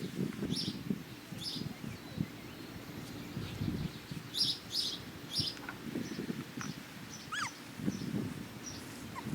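Small birds chirping in short repeated bursts over steady rustling and handling noise, with a short falling whine about seven seconds in.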